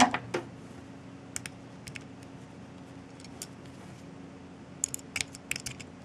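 Screwdriver and grip screw on a North American Arms .22 mini revolver being worked to fasten the new grips: a sharp click at the start and another just after, then scattered light metallic clicks and taps, bunched together near the end.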